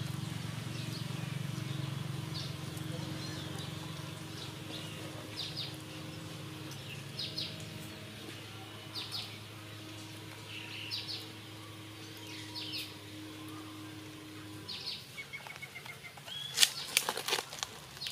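Short high bird chirps repeat every second or two over a steady low hum, which stops about fifteen seconds in. Near the end, loud close knocks and scratches come as the macaque reaches the camera and handles it.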